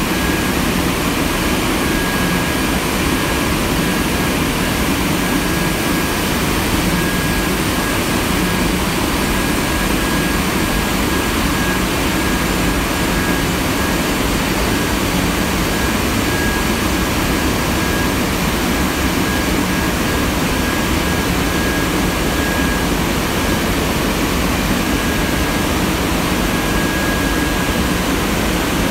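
High-speed crescent-former tissue paper machine running on the mill floor: a loud, steady industrial noise, with a thin high whine that drops out and comes back several times.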